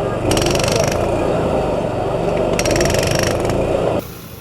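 Hydraulic breaker hammering into the ground in two short bursts of rapid strokes, over the steady drone of its engine-driven hydraulic power unit. Everything cuts off abruptly near the end.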